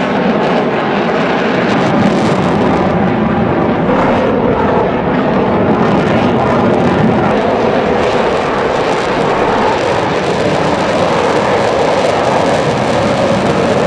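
F-16 fighter jet's engine, loud and steady, as the jet manoeuvres through an aerobatic display.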